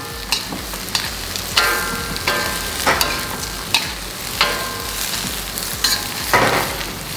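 Vegetables stir-frying in a steel wok: a steady sizzle, with a metal spatula scraping and clinking against the pan about every three-quarters of a second, each strike leaving a short metallic ring.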